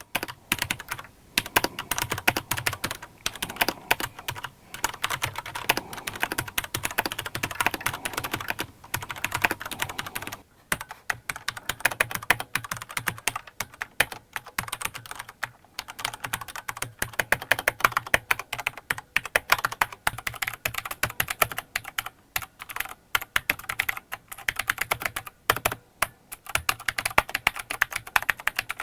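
Fast, continuous typing on a mechanical keyboard with Cherry MX key switches, many keystrokes a second, with a couple of brief pauses.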